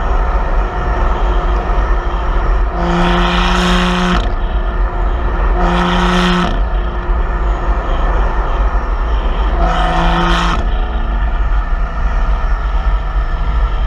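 BMW M2's turbocharged straight-six heard through its M Performance exhaust at the tailpipes while driving, over a steady low rumble of road and wind. Three louder stretches of about a second each, each holding one steady pitch, come a few seconds apart.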